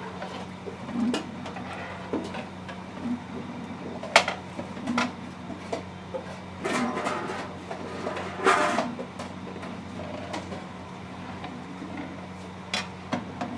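A long metal ladle stirring chicken curry in a large aluminium pot, scraping and knocking against the pot's sides in irregular strokes, over a steady low hum.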